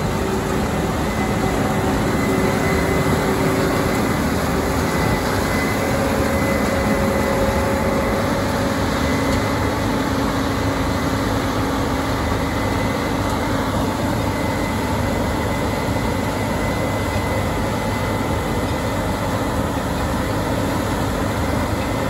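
Combine harvester running steadily at working load while cutting soybeans: an even machine drone with a few faint steady tones.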